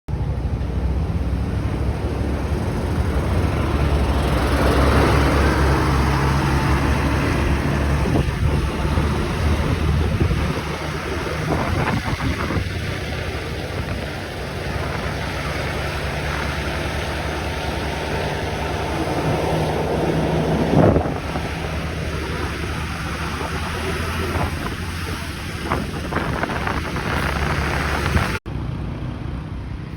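Engine of a coach bus running steadily, with wind on the microphone; it grows louder for a few seconds near the start, there is a sharp knock about two-thirds of the way through, and the sound cuts off abruptly shortly before the end.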